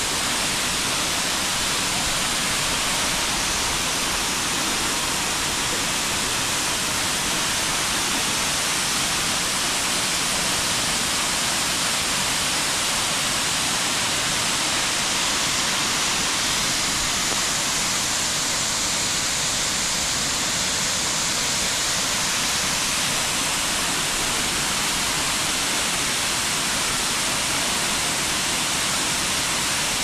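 Steinsdalsfossen waterfall pouring steadily: a loud, even rush of falling water.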